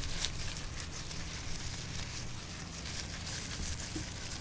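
Wind rumbling on the microphone, over a steady high rustle with irregular small crackles.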